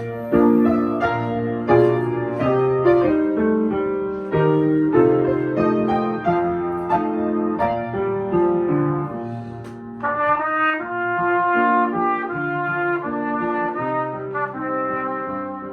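Piano introduction with struck chords, then a trumpet comes in about ten seconds in and plays the solo melody over the piano accompaniment.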